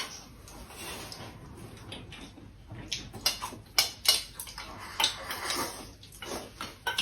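Tableware during a meal: chopsticks clicking against bowls and plates in short, irregular knocks, thickest in the second half.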